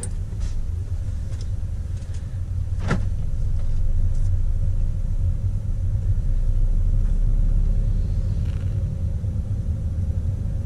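Steady low rumble of a moving car heard from inside the cabin, road and engine noise swelling slightly in the middle, with a single sharp click about three seconds in.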